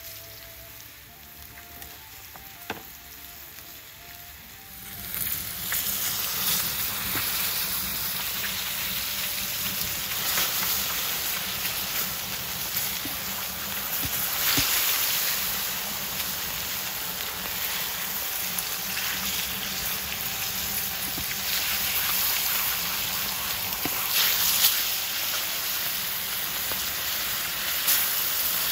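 Bone-in veal loin chops sizzling in oil on a hot steel saj. The sizzle is fairly quiet at first, then turns loud and hissing about five seconds in, with occasional spitting pops.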